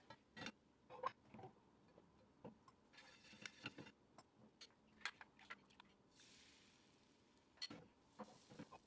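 Faint scattered clinks and knocks of a metal crêpe pan being tipped over a plate and set back down on the gas hob's grate, then a soft hiss about six seconds in as chocolate batter is poured into the hot pan.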